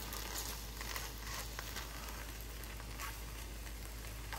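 Crepe sizzling in a hot frying pan: a steady hiss with small crackles.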